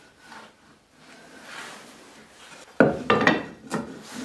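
Wooden boards and clamp parts being shifted and knocked together: soft rubbing and shuffling at first, then a quick clatter of four or five sharp wooden knocks about three seconds in.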